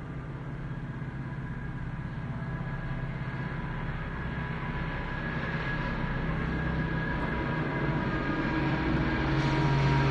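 Steady low mechanical rumble with a hum, slowly growing louder throughout, like an engine drawing nearer.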